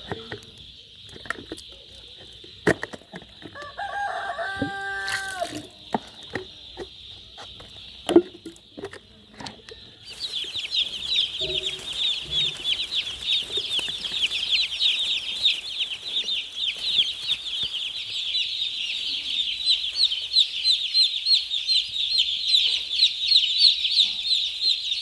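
Farmyard chickens: a rooster crows once about four to five seconds in over a steady high whine. From about ten seconds in, a dense chorus of rapid, high, repeated peeping from many birds takes over and is the loudest sound.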